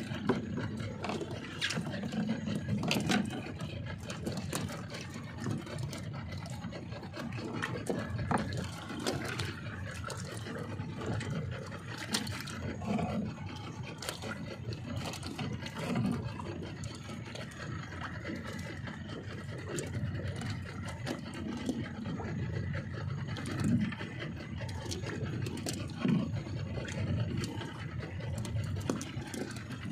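Steady wind and water noise aboard a small fishing boat, swelling irregularly, with scattered light clicks from hands working fishing line and hooks.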